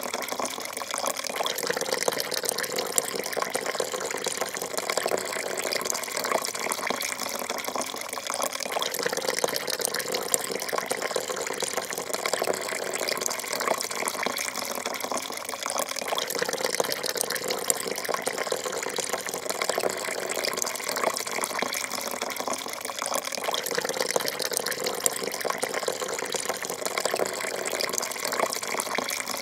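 Coffee poured in a thin, steady stream into a porcelain cup already part full: a continuous, even splashing trickle of liquid into liquid.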